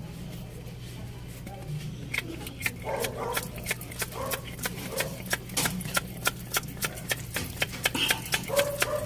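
Isuzu 6WF1 common-rail diesel engine running at idle with a steady low hum. From about two seconds in, sharp ticks repeat about three times a second.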